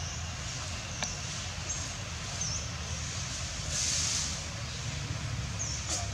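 Outdoor background: a steady low rumble and hiss with a few faint, short high chirps scattered through it, and a brief swell of hiss about four seconds in.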